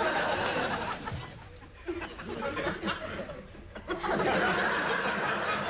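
Sitcom studio audience laughing, in two waves: one at the start that dies down by about a second and a half in, and a louder one from about four seconds in.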